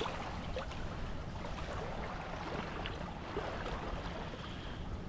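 Steady wind buffeting the microphone, with water washing at the shoreline underneath.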